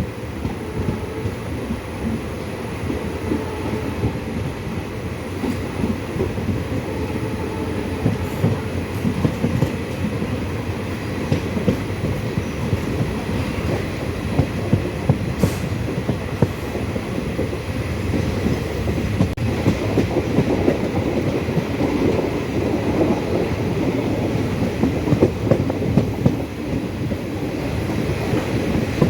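Passenger train running on the Shoranur–Nilambur line, heard from on board: a steady rumble with the wheels clattering over the rail joints.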